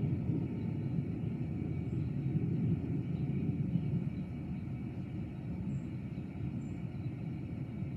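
Thunder rolling as a low, continuous rumble that slowly fades over several seconds.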